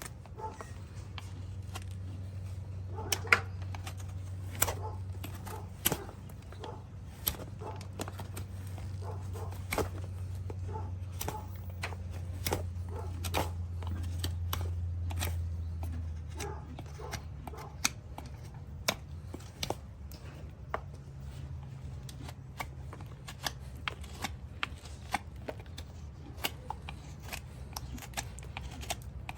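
Farrier's hand tools working on a horse's hoof: irregular sharp clicks, snips and scrapes as the hoof is cleaned and trimmed, over a steady low hum.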